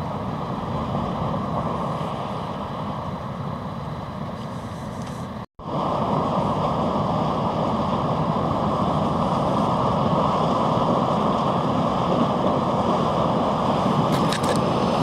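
Steady rumbling noise of an inland cargo ship pushing through drifting ice floes, the engine and the ice churning along the hull. It cuts out for a moment about five and a half seconds in, then comes back a little louder.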